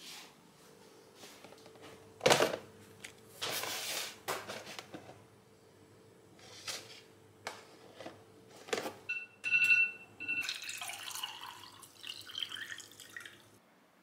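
Thin plastic takeaway meal box being handled and its clear lid opened: a run of separate crinkles and clicks of plastic. A brief steady tone sounds about nine seconds in, followed by more rustling.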